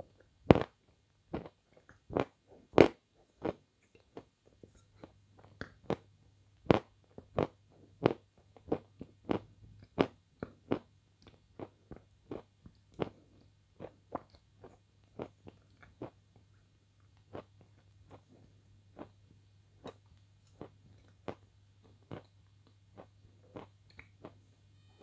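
Close-miked biting and chewing of a glazed ice cream bar: a string of sharp, wet mouth clicks and smacks, a few a second, thinning out toward the end.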